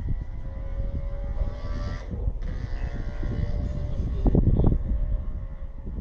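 Wind buffeting the microphone in uneven low gusts. A faint steady hum sits underneath for the first couple of seconds.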